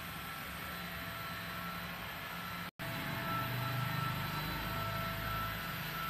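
Handheld paint spray gun running steadily with a whine and hiss while spraying a steel roof frame, broken by a momentary dropout a little before halfway.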